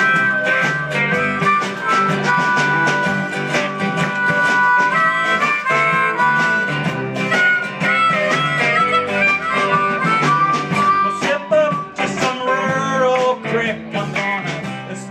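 Live blues band playing, with a harmonica carrying the melody in long held notes over guitars, upright bass and drums; the music fades down near the end.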